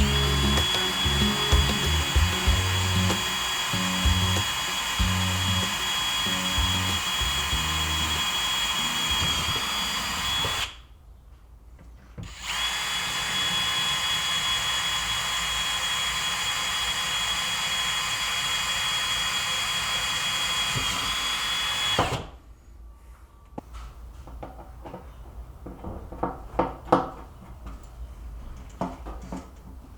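Electric power tool motor running at a steady speed with a constant high whine, in two runs of about ten seconds each with a short pause between, followed by a few light knocks and clicks.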